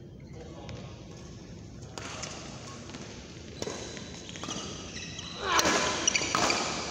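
Badminton rally: rackets striking the shuttlecock with sharp smacks about a second apart, over the players' footwork on the court. The hits get louder and closer together near the end.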